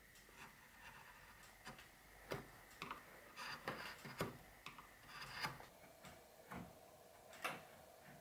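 A knife blade paring shavings from the hollowed-out birch burl, heard as a faint, irregular series of short scraping cuts and ticks.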